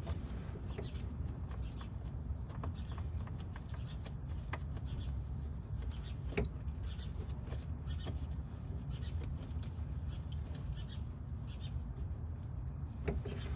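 Faint scattered clicks and rubbing as a yellow plastic radiator drain plug is screwed back in by hand, over a steady low rumble.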